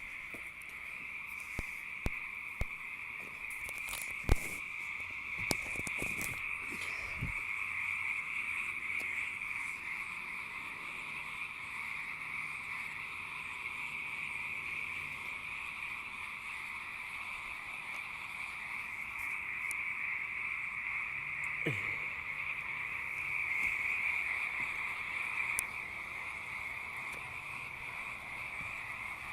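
A dense night chorus of many frogs calling, a steady, unbroken mass of calls. A few sharp knocks sound in the first few seconds.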